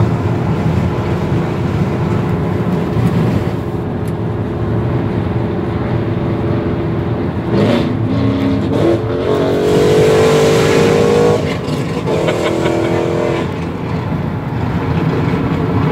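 Car engine accelerating hard, its note rising twice with a break between, as in a gear change, heard from inside a car at highway speed over steady road noise.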